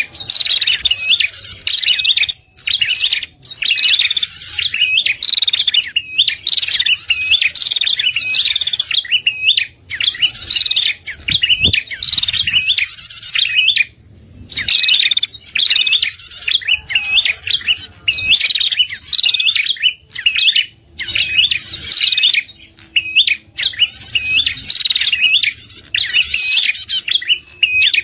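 Prenjak calls played as a lure: rapid, sharp chirping phrases with high trills, repeated over and over with brief pauses between them.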